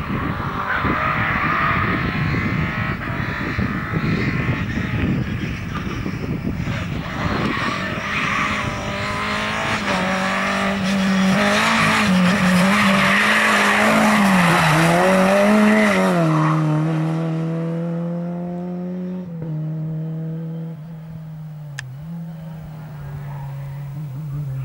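A Lada rally car's four-cylinder engine is worked hard, with tyres skidding and scrabbling as it slides through a slalom. The engine note rises and falls repeatedly and is loudest a little past the middle. It then settles to a steadier, lower drone that fades as the car pulls away.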